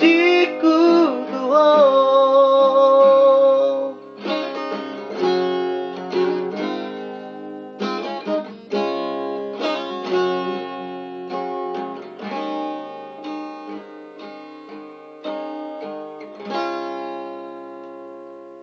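Guitar strummed and picked in a slow closing passage, under a long sung note that wavers in pitch for the first few seconds. The voice stops about four seconds in, and the guitar chords ring on, getting slowly softer toward the end.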